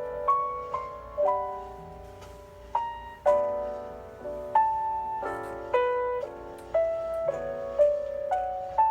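Background piano music: a slow melody of single struck notes, each ringing and fading.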